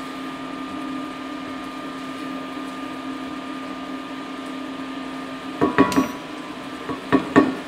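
Steady electrical hum with a thin high whine from a portable induction hob heating a simmering tomato sauce, with a few knocks of a wooden spoon against the stainless sauté pan as the sauce is stirred, in two short clusters in the second half.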